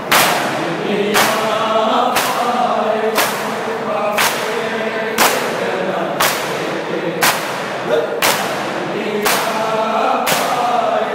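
Matam: a crowd of men chanting in unison while beating their chests together with open hands, one sharp slap about every second in a steady rhythm.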